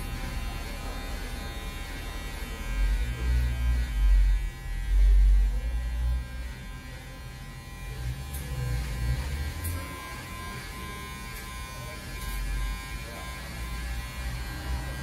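Steady electric buzz of hair clippers running, with low rumbling handling noise on the microphone about 3 to 6 seconds in and again briefly near 8 seconds.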